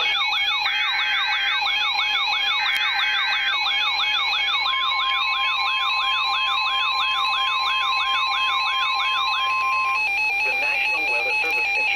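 NOAA Weather Radio alert signal. Two buzzy SAME data bursts come in the first few seconds over a rising-and-falling alert siren that warbles about two to three times a second until near the end. The steady 1050 Hz warning alarm tone comes in about 5 seconds in and cuts off about 10 seconds in.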